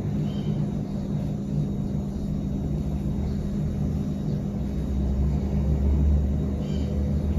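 A steady low mechanical hum with an underlying rumble that swells from about five seconds in, then eases off near the end.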